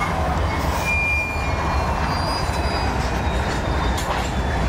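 Union Pacific freight train rolling past: diesel locomotives and wheels on rail make a steady low rumble, with a few faint, brief high-pitched wheel squeals. Wind buffets the microphone.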